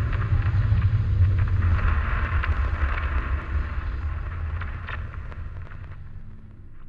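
Intro sound effect: a deep rumble under crackling hiss, slowly fading away over the last couple of seconds.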